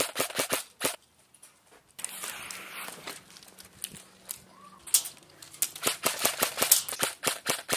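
Airsoft guns firing rapid strings of shots: a short burst at the start, then a longer run of quick shots from about five seconds in. A brief hiss comes around two seconds in.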